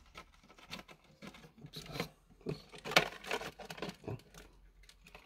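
Irregular handling noises, short clicks, scrapes and rustles, as a container is opened and tipped to move a scorpion into a terrarium, with one sharp click about three seconds in.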